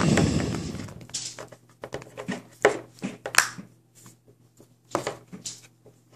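A small plastic slime container and its lid pieces being handled: a brief rubbing rumble at the start, then scattered clicks and light knocks of plastic against plastic and the wooden tabletop as the red perforated insert is fitted.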